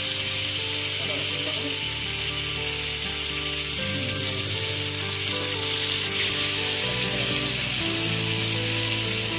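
Pieces of marinated pomfret frying in hot oil in a pan, a steady loud sizzle, with background music under it.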